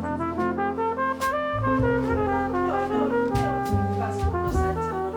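Background music with brass instruments, trumpet and trombone over a bass line and light drums, in an upbeat jazzy style.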